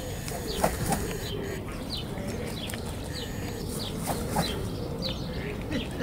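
Swan bathing in shallow water: a few sharp splashes and wing flaps, the loudest a little under a second in and again about four seconds in. Over it a small bird calls a steady string of short, high, falling chirps.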